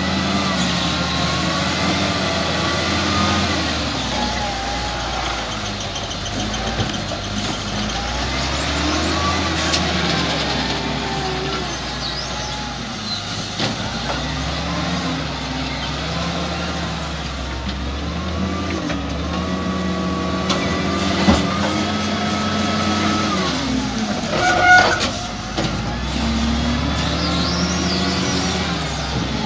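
Diesel engine of an XCMG LW300KN wheel loader running and revving up and down again and again as the loader works, its pitch rising and falling. A short, louder sound comes through about 25 seconds in.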